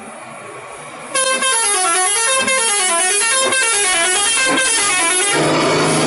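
Indonesian 'telolet' bus horn, a multi-tone musical horn, playing a quick melody that steps up and down in pitch for about four seconds, starting about a second in. A loud rush of noise follows near the end.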